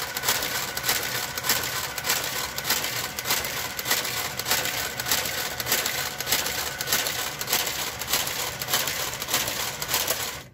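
Brother electronic knitting machine with its KG-93E garter carriage, clattering with a steady stream of rapid mechanical clicks that cuts off abruptly near the end.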